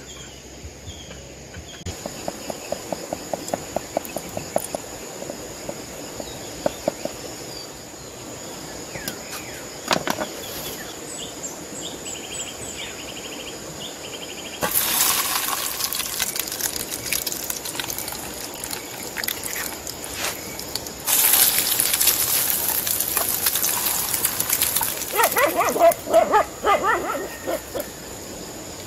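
Food sizzling in hot oil in a small camping frying pan on a mini stove. The sizzle starts suddenly about halfway through and gets louder a few seconds later, after some light clicks of handling.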